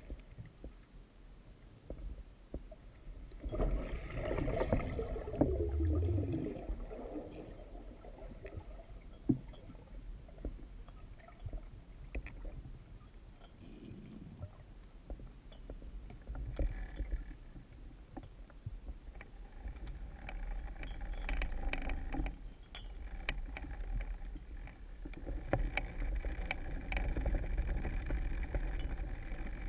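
Muffled underwater sound heard through a GoPro Hero2's sealed housing: a low rumble with scattered clicks and knocks, swelling louder for a few seconds about four seconds in and again near the end.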